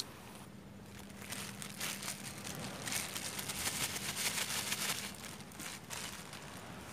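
A thin plastic bag being handled and crinkled, with a dense run of fine crackles that builds over a few seconds and then fades.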